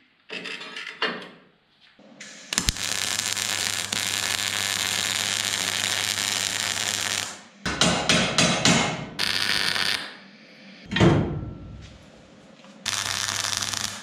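Wire-feed (MIG) welder arc running steadily for about five seconds, then in several shorter runs of a second or so. A single sharp knock comes about eleven seconds in.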